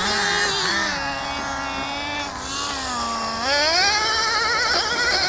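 Small two-stroke nitro engine of an RC car running and revving. Its pitch wavers, settles lower, then climbs sharply about three and a half seconds in and holds high.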